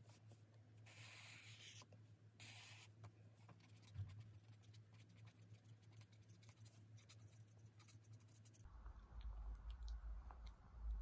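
Faint highlighter pen strokes and scratches on a book page, with small paper ticks over a low hum. About 8.5 seconds in, this gives way to a low rumble of room noise.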